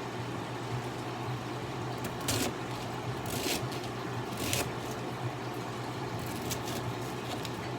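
Kitchen range-hood fan running with a steady low hum, with three brief scraping or rustling noises about two, three and a half, and four and a half seconds in.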